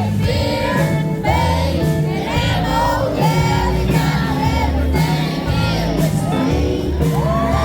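Live country band playing loud, steady music with a lead singer's voice over the band.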